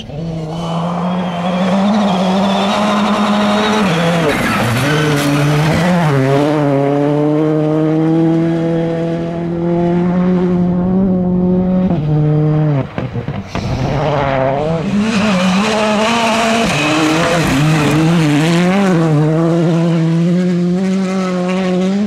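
Rally2 cars at full throttle on a gravel special stage: the turbocharged engine holds high revs, with its note dropping and climbing again at quick gear changes, over the hiss of tyres and thrown gravel. The sound breaks off briefly a little past halfway, then another car comes through the same way.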